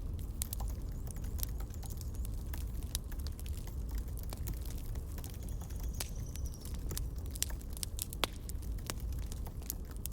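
Campfire crackling: irregular sharp snaps and pops over a steady low rumble.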